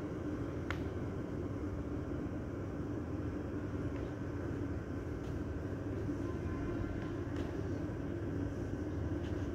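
Steady low mechanical hum and rumble, with a sharp click about a second in.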